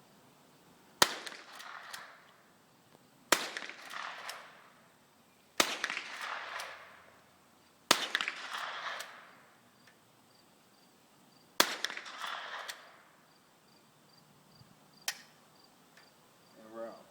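Five shots from a .22 LR Henry lever-action repeater rifle, fired at a steady pace about two seconds apart with a longer gap before the last. Each crack is followed by about a second of clicking and rattle as the lever is worked to chamber the next round. A single sharp click comes about three seconds after the last shot.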